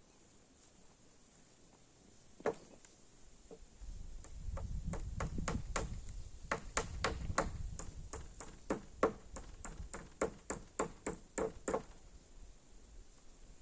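A run of sharp taps or knocks, about three a second, starting about four seconds in and stopping near the end, with a low rumble under the first half of the run and a single tap shortly before it.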